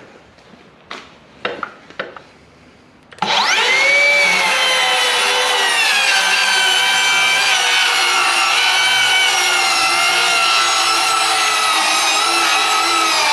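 A few light knocks, then about three seconds in a Makita XSH06 36-volt cordless circular saw with a 7-1/4-inch Diablo Demo Demon blade starts with a quickly rising whine and rips lengthwise through LVL. Its pitch dips slightly as the blade bites, then holds steady without bogging down.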